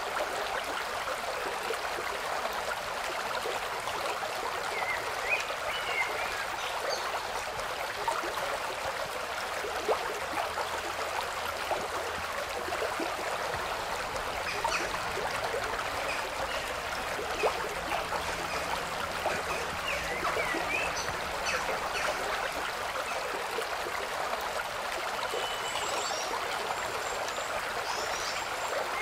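Steady running-water noise, as of a stream, with faint short high chirps scattered through it.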